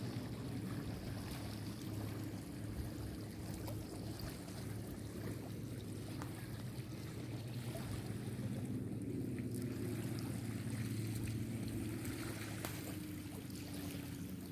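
Outdoor water ambience: a continuous wash of moving water and wind over a steady low hum.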